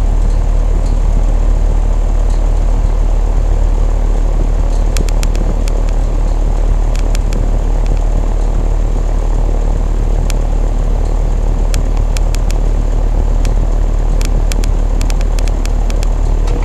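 2007 Carrier central air-conditioner condensing unit running steadily under a high heat load: compressor and condenser fan hum, strong and low. Scattered faint ticks come in over the second half.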